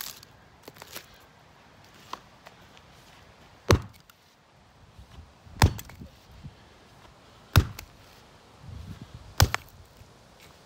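Small axe chopping old wooden boards lying on the ground: four sharp chops, roughly two seconds apart.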